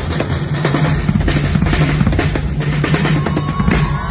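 Drum kit played hard at a soundcheck: rapid snare and bass-drum strokes with cymbal hits, over a steady low note, and a held higher tone comes in near the end.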